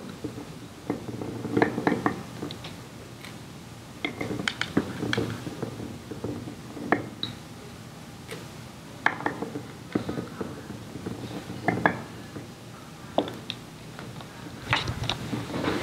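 Irregular small clicks and metal clinks of a screwdriver backing Phillips screws out of a KNF diaphragm pump's top cover, with screws and hand tools being handled and set down on the desk.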